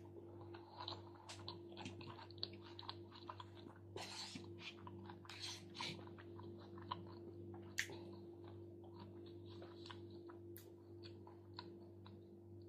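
Close-up chewing of a salmon and chuka seaweed salad: soft, irregular crunching and clicking mouth sounds, faint, over a steady low hum.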